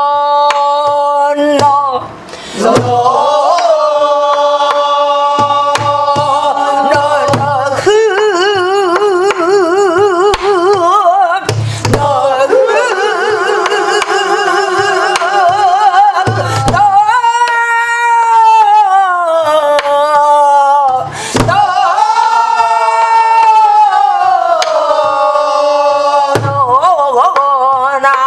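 A woman singing Korean guum, a wordless melody on vocable syllables, in long held notes with wide vibrato and sliding pitch. She marks the beat with low strokes on a buk barrel drum.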